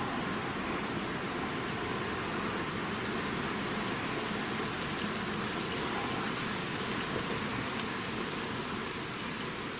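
Insects shrilling in one steady, unbroken high-pitched chorus over a low, even hiss.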